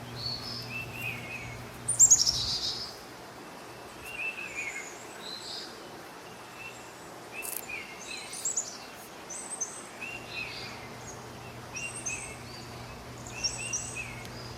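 Songbirds chirping and singing in short repeated phrases, with a louder run of quick falling notes about two seconds in. A faint steady low hum lies underneath.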